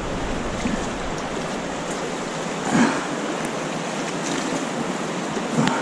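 Steady rush of a fast-flowing river, with a brief louder swell about three seconds in.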